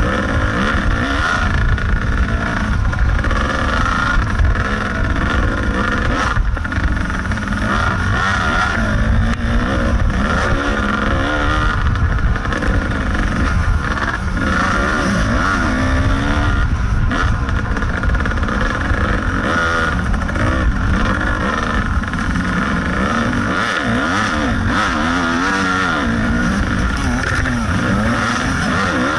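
Kawasaki KDX 220 two-stroke dirt bike engine ridden hard over a rough trail, its pitch rising and falling over and over as the throttle is worked.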